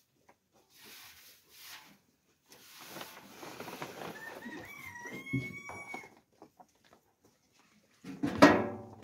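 A rooster crowing once, a drawn-out call about four seconds in, over a rustling noise. A loud call near the end.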